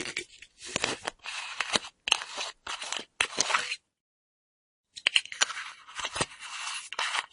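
Screw cap of a full metal flask twisted on its threads. It makes a run of about five short scraping turns, then after a second's pause another run of quicker scraping turns.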